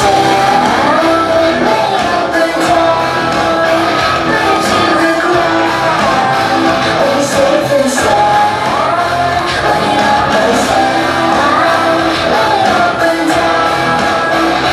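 Loud recorded song with singing and shouted vocals, played through a club's sound system; a gliding vocal phrase comes back every few seconds.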